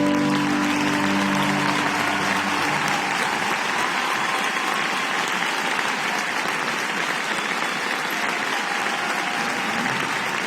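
Large crowd applauding steadily. The last held notes of the program music fade away in the first few seconds.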